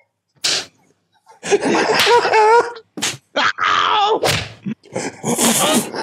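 Men groaning and crying out without words in a staged struggle, with three sharp slap-like hits between the cries.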